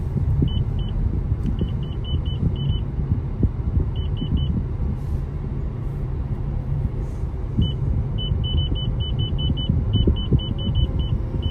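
Steady low road and engine rumble inside the cabin of a moving 2024 Toyota Yaris Cross, with runs of short high-pitched beeps, the longest run near the end.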